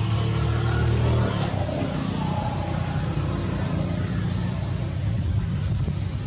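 Steady low rumble of a motor vehicle engine running, loudest in the first second or so.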